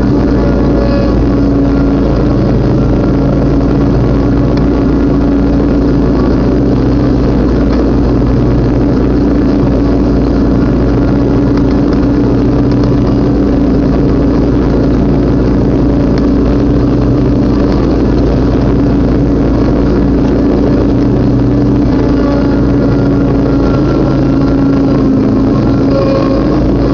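Riding lawn mower engine running steadily under load while cutting tall grass, a constant loud drone with a slight dip in pitch near the end.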